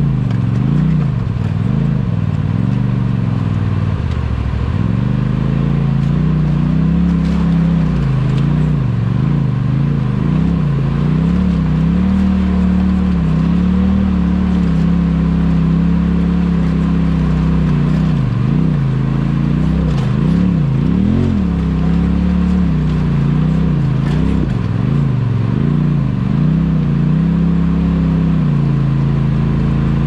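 Off-road vehicle's engine running under changing throttle, its pitch rising and falling again and again, with a few knocks and rattles.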